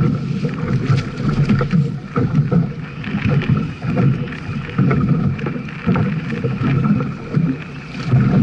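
Small fishing boat at sea: waves slapping and washing against the hull and wind buffeting the microphone, in an uneven rumble that swells and dips every second or so.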